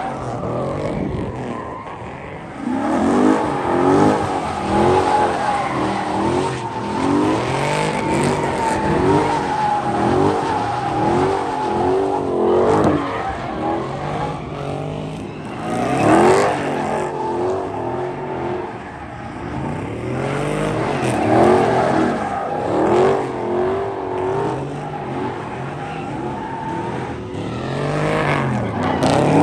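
Chrysler 300 sedan doing donuts: the engine revs rise and fall about once a second while the rear tyres squeal steadily against the pavement in a burnout.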